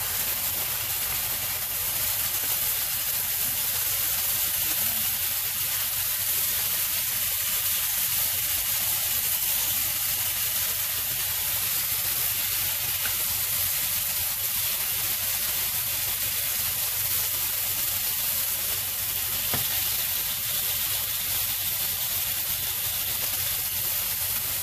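Pork tenderloin pieces frying in a pan, a steady high sizzle, with a few faint clicks as metal tongs turn the meat.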